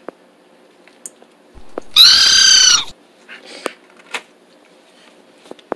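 A dog's high-pitched whine, lasting just under a second about two seconds in, with a few faint clicks around it.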